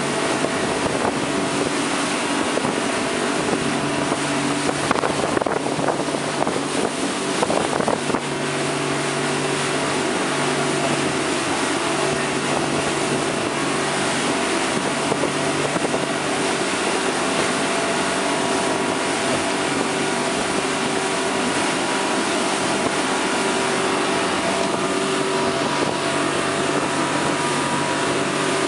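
Speedboat under way at speed: the engine's steady drone under the rush of water and spray from the wake, with a few sharper knocks about five to eight seconds in.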